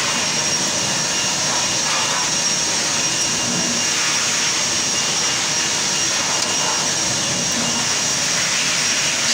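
Steady, loud rushing air noise from machinery, with a faint high steady whine.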